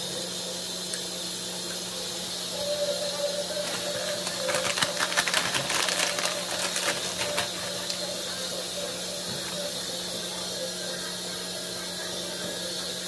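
Plastic packaging crinkling and crackling as it is handled and opened, a dense run of small clicks for several seconds in the middle, over a steady background hiss and hum.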